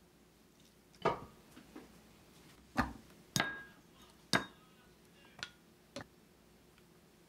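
Half a dozen sharp knocks and taps at irregular intervals: white ceramic bowls and a plastic rice paddle knocking against each other and a stone countertop as rice is served from a rice cooker.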